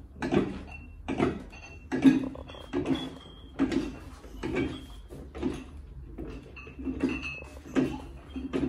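Home weight bench's leg-extension arm loaded with iron weight plates, creaking and clinking with each repetition: a steady rhythm of about one stroke every 0.8 seconds, some strokes with a short squeak.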